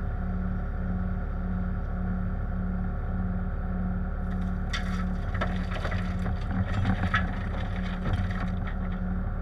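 Diesel engine of a Bobcat compact machine running steadily, with rock scraping and clattering from about four and a half seconds in until near the end as shale is loaded.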